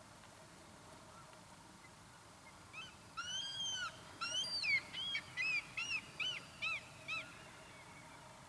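Common redshank calling: two longer arched, piping notes starting about three seconds in, followed by a run of shorter notes about two a second that ends a little after seven seconds in.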